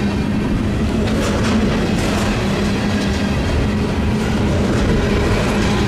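Double-stack container freight train rolling past close by: a steady rumble of the well cars' wheels on the rails, with occasional faint wheel clicks.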